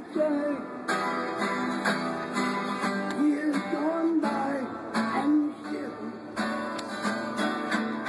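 Steel-string acoustic guitar strummed in a steady rhythm, with a man singing a melody over it.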